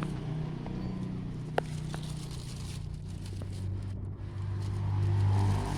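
A motor engine running steadily, growing louder near the end, with a single sharp click about a second and a half in.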